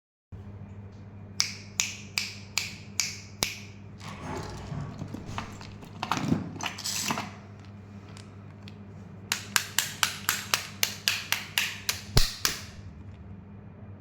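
Candy packaging handled by hand: a run of sharp clicks, then plastic wrapper crinkling for a few seconds, then a faster run of clicks, about four a second. A faint steady low hum runs underneath.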